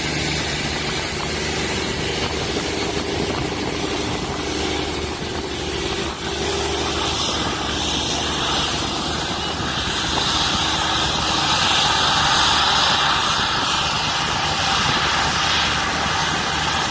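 Boeing 777 twin jet engines at taxi power as the airliner rolls past close by: a steady rushing whine over a low hum, growing louder about halfway through as it nears and turns.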